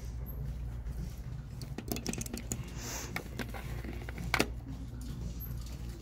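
A few light clicks and rustles of costume jewelry and small plastic bags being handled at a glass display case, the sharpest about four and a half seconds in, over a steady low hum of the room.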